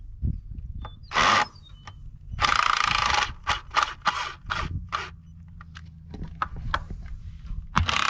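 Cordless drill backing a screw out of a wooden fence post in short bursts: one about a second in, a longer run at two and a half seconds, a string of quick blips around four seconds, and another run near the end. A steady low hum lies underneath.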